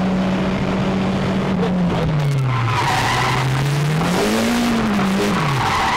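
Drift car's engine in second gear held at steady revs, then dipping and climbing again as the car is thrown into a handbrake-locked turn around a pylon, heard from inside the cabin. Tyres squeal in two spells, about halfway through and near the end, as the revs fall away sharply.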